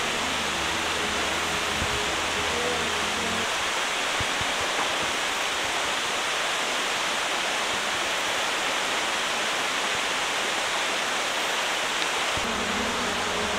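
Steady rush of flowing water, loud and even. Soft background music sits under it for the first few seconds and returns near the end.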